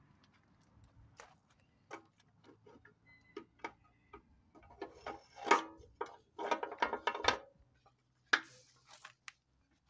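Scattered metallic clicks and clunks from an International U4 power unit being turned over by hand at the front pulley, showing the engine is free and not stuck. The clicks come closer together and louder about halfway through.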